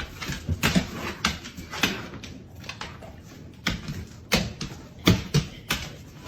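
A rapid, irregular series of knocks and clicks, a dozen or more, some with a heavier thump.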